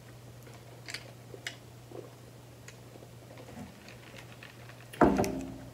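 A person sipping soda through a straw, heard only as a few faint clicks of sipping and swallowing over a low steady hum, then a sudden louder thump about five seconds in.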